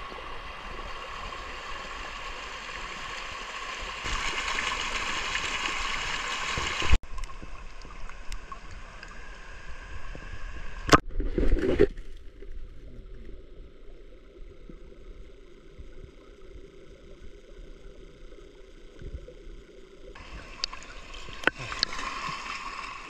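A small stream running and burbling over rocks. After a cut the water is heard from underwater, muffled and dull, with a couple of sharp knocks and a splash a little before the middle. Near the end comes splashing and lapping at the river surface.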